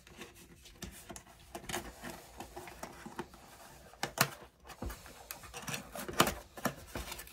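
A package being opened by hand: rustling and crinkling of the wrapping, with a few sharp clicks and knocks from handling, the loudest about four and six seconds in.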